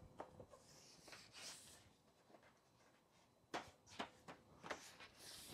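Faint handling noise: a few small clicks and soft rustling as gloved hands press a plastic radiator dust cover into place and rub along it.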